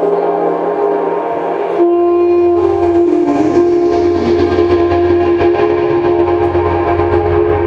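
Intro music made of held, droning tones. About two seconds in it changes to a single held horn-like tone, wavering briefly, over a low rumble.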